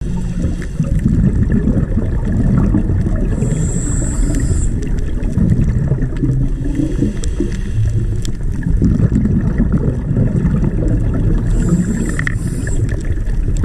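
Underwater sound of a scuba diver's regulator breathing, heard through the camera housing: a steady low rumble and bubbling of exhaled air, with two brief high hisses, one about four seconds in and another near the end.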